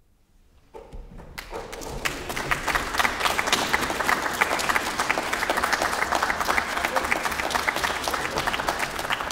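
A brief hush, then applause breaks out about a second in and quickly builds to steady, dense clapping from many hands.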